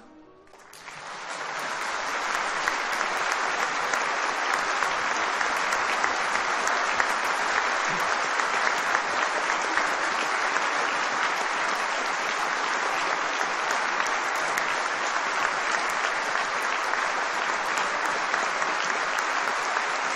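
Large concert-hall audience applauding. It starts about half a second in as the music dies away, builds within a couple of seconds to dense, steady clapping, and holds there.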